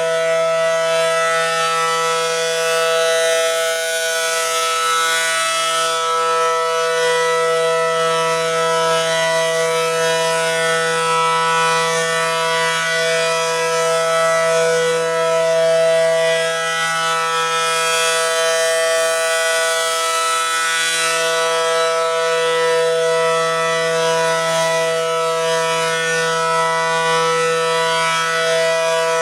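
ACA Allertor 125 outdoor warning siren sounding a steady alert tone during a test. It holds a steady chord-like pitch, and its high end swells and fades twice as the rotating horn sweeps past.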